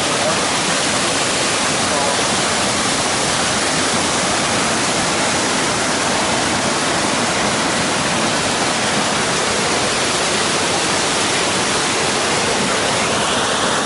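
Small waterfall cascading over rocks: a loud, steady rush of water.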